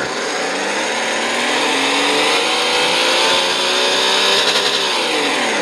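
Simulated engine sound sample, 'Short Course Buggy B' from the Sense Innovations ESS Dual sound library, playing through computer speakers. The engine revs with its pitch climbing steadily for about four seconds, then drops back near the end.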